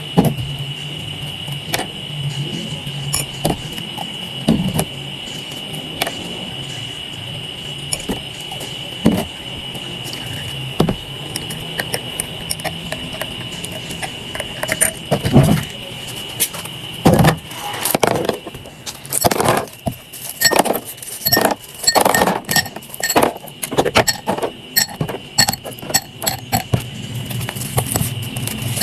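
A metal teaspoon ticking lightly against a glass mug while stirring, over a steady high-pitched whine. In the last third, many sharp ringing clinks of metal and ice against glass follow in quick succession.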